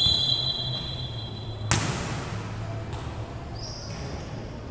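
Referee's whistle blown for nearly two seconds, then one sharp smack of a volleyball being struck, typical of the whistle for service followed by the serve.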